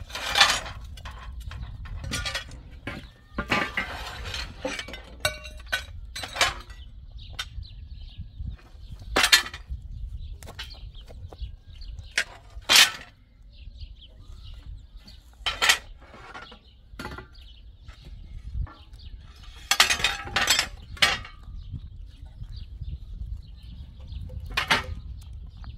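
A series of irregular sharp knocks and clinks of hard objects being struck or handled, about a dozen spread out over the stretch, over a steady low rumble.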